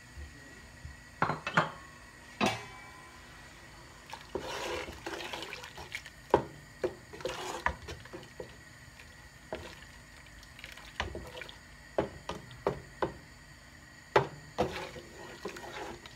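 Wooden spatula stirring liquid in a stainless steel pot: swishing and sloshing, with repeated sharp taps and knocks of the spatula against the pot's side.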